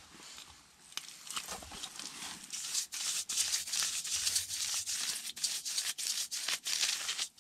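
Stiff paintbrush scrubbing liquid rubber waterproofing onto the foam face of an ICF wall, a run of quick, scratchy brush strokes that grows busier after about two and a half seconds.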